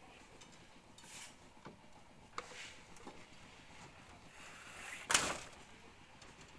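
Scattered light knocks and clinks of hand work on a steel rebar mesh, with a scrape building up to one loud sharp knock about five seconds in.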